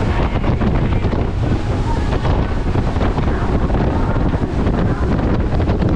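Wind buffeting the microphone and water rushing and spraying off the hull as a Robalo center-console boat runs at speed over light chop. The sound is loud and steady throughout.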